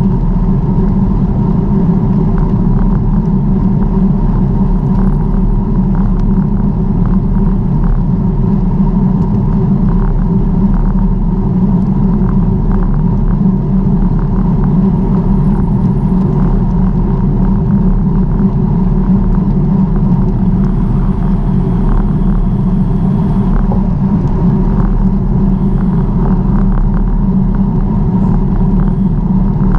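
Steady rumble of wind on the microphone and tyres on the road while riding a bicycle, with many small clicks and rattles from bumps.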